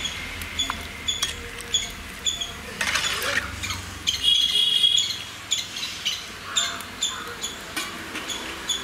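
Slotted metal ladle stirring and scraping in an aluminium pot of cauliflower, loudest a little past the middle. A bird repeats a short high chirp about twice a second throughout.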